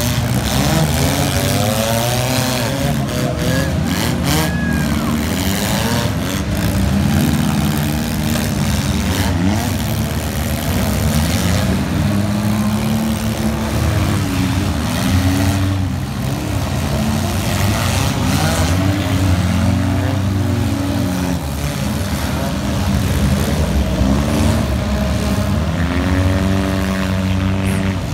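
Many demolition derby cars' engines running and revving together, pitch rising and falling constantly, with occasional sharp bangs of impacts.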